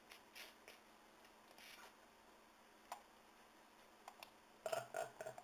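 Faint, scattered computer mouse clicks and soft rustles, with a louder quick cluster of clicks near the end.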